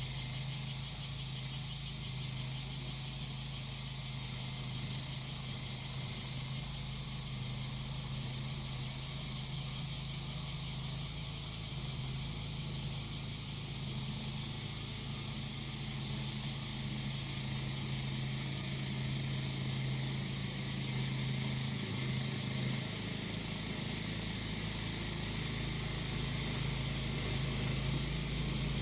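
Small engine of a grass-cutting machine running steadily, growing a little louder in the second half, over a dense, high-pitched buzzing chorus of cicadas.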